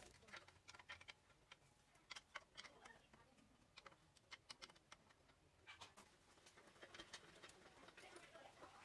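Faint, irregular metal clicks and taps of a spanner being fitted onto and turned on the nuts of a drill press head, coming in small clusters.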